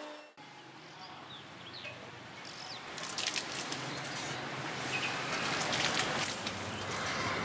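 Red-hot spring-steel sword blade plunged into a tube of quenching oil to harden it: the oil sizzles and crackles as it flares into flame. The sharp crackles come about three seconds in, over a low steady hum.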